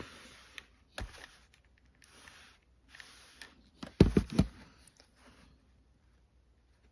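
Cotton quilt fabric rustling as it is handled and smoothed on a pressing mat, with a click about a second in and a few soft knocks about four seconds in as a small handheld iron is set down on its heel.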